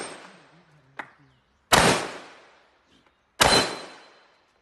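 Two rifle shots about a second and a half apart, each a sharp crack that rings out and dies away over about a second.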